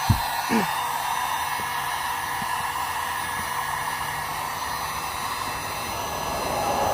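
Handheld electric heat gun running steadily, its fan blowing a constant airy hiss of hot air onto a plastic car bumper to soften it. A brief knock sounds just after the start, followed half a second later by a short sound falling in pitch.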